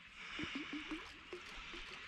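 Faint chorus of short chirping animal calls, several a second, over a steady high hiss.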